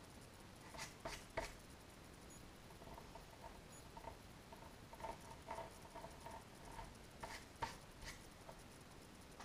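Faint pencil sketching on paper: a few short scratchy strokes and taps about a second in and again near the end, with a run of quick, faint squeaks in the middle.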